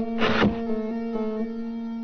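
Background music: a steady held low chord, with a short burst of noise about half a second in.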